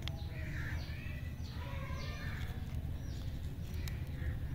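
Birds calling now and then over a steady low rumble, with a few faint ticks from a small paper sticker being unfolded.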